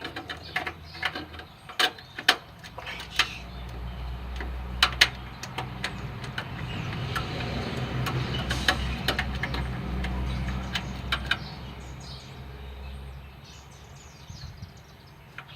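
Scattered metal clicks and clinks of a spark plug socket and ratchet being worked onto a deeply recessed spark plug in a VW air-cooled engine. Under them, a low rumble swells up in the middle and fades away before the end.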